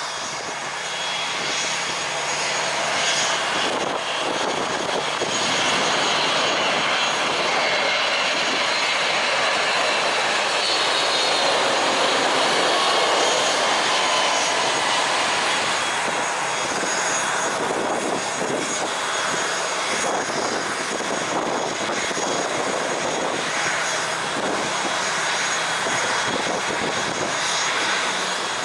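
Jet engines of a four-engined Boeing 747-400F freighter passing low on approach and landing: a steady rushing jet noise with a thin, high, steady whine, swelling to its loudest about halfway through.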